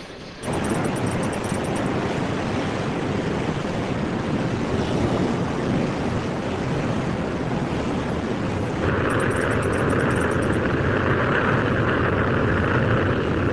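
Steady rushing roar of wind and sea. About nine seconds in, the jet noise of an anti-ship missile in flight joins it and the roar grows louder and hissier.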